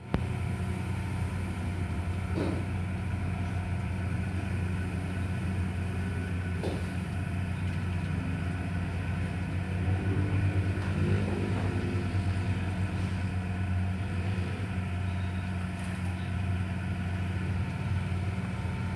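An engine idling steadily, a continuous low hum, with two brief knocks in the first seven seconds.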